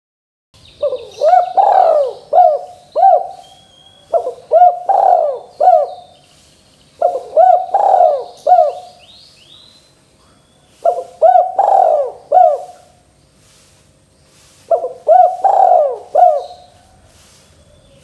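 Spotted dove (tekukur) cooing: five phrases of several short coos, one roughly every three to four seconds, with faint high chirping behind.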